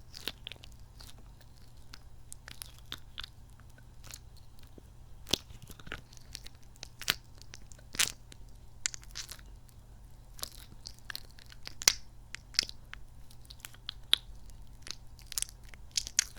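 Squishy kidney-bean-pod squeeze toy being pressed and kneaded close to the microphone, its soft sticky rubber giving irregular sticky clicks and squelching crackles.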